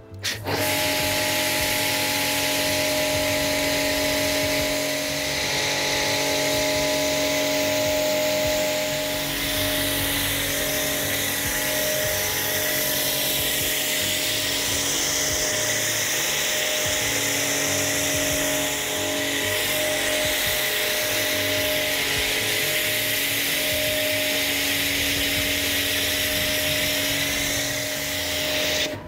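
Pressure washer running steadily while its snow foam lance sprays thick foam: a steady hiss of spray over the machine's motor hum.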